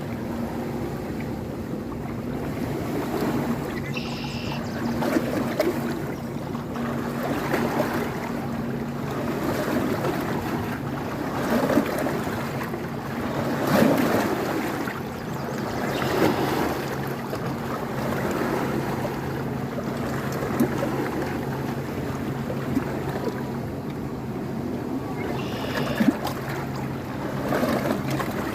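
River water flowing and splashing, with a steady low hum underneath.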